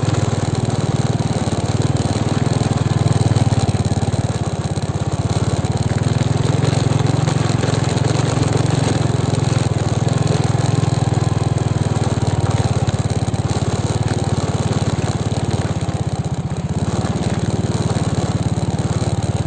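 Motorcycle engine running steadily under way while riding along a dirt track, with road noise beneath it.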